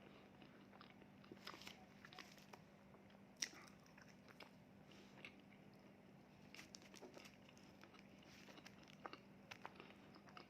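Faint eating sounds: soft bites, crunches and chewing clicks, scattered and irregular, with one sharper click about three and a half seconds in, over a steady low hum.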